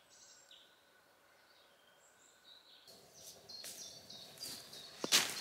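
Woodland ambience with small birds chirping faintly, then from about three seconds in, crunching footsteps and rustling through dry leaf litter, the loudest crackle near the end.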